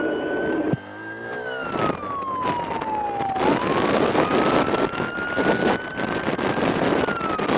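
Police siren wailing, its pitch slowly rising and falling through about two cycles, over a steady rush of road and wind noise. An engine revs up about a second in.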